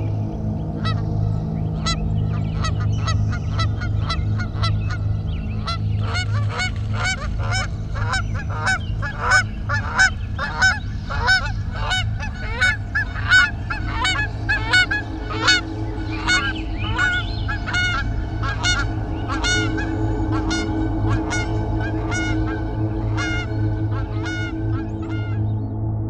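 A flock of birds honking: many short, repeated honking calls, two or three a second at their thickest in the middle, fading toward the end. Under them runs a steady low drone.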